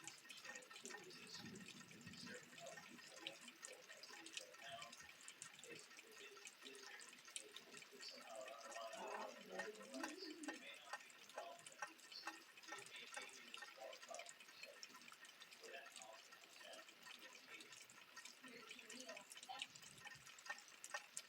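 Rain falling and dripping: a faint patter of many small, irregular drip ticks.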